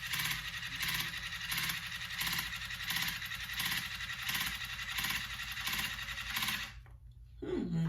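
Hanasco H100 cordless water flosser running on its pulse setting: a hissing spray and motor that pulse in a steady, even rhythm, cutting off suddenly near the end. A brief voice sound follows just after it stops.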